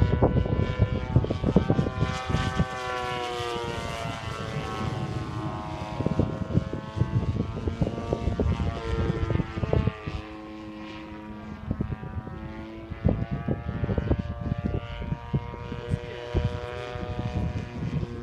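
MX-2 RC airplane's DLE-55 single-cylinder two-stroke petrol engine and propeller in flight, the pitch rising and falling repeatedly with throttle and passes. Frequent short thumps sound throughout.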